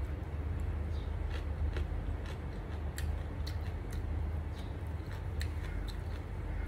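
Chewing with scattered wet mouth clicks from a person eating rice, fried cha-om omelette and pickled greens by hand, over a steady low hum.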